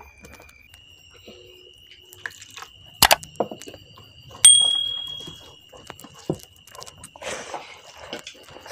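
Eating by hand: soft squelches and clicks of fingers mixing and scooping rice and curry, and chewing. About three seconds in a sharp click, then a bell-like ding that rings out for about a second, the sound of a subscribe-button animation. A faint steady high whine sits underneath throughout.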